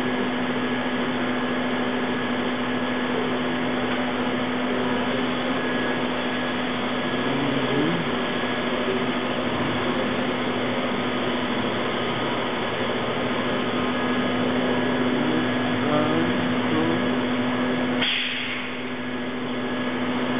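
Steady mechanical hum of a Saginaw Machine Systems Challenger I-25-MP inverted vertical lathe running its automatic cycle, with a constant low tone and faint whines of its drives moving. A brief hiss comes about 18 seconds in.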